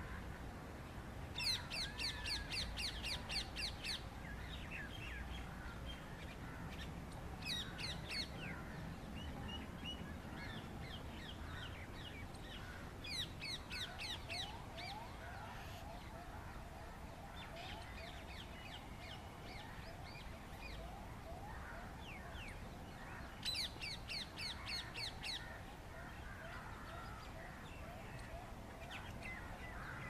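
Black-rumped flameback woodpecker calling in four bursts of rapid, high, sharp notes, the longest lasting about two and a half seconds. Fainter bird calls fill the gaps between bursts.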